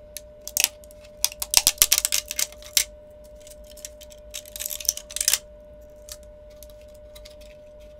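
3D-printed plastic support material snapping and crackling as it is pried and twisted out of a printed skull's eye sockets with pliers. Rapid runs of small sharp clicks, one run from about a second in to nearly three seconds and a shorter one around five seconds.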